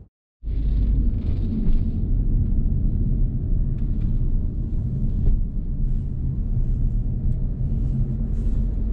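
Steady rumble of a car driving along the road, heard from inside the cabin. It cuts to silence for a moment just after the start, then carries on unchanged.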